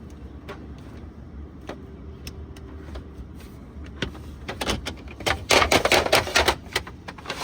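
Parts of a car bed platform being handled and fitted together: a few light clicks, then from about four seconds in a dense run of loud clattering knocks lasting about three seconds.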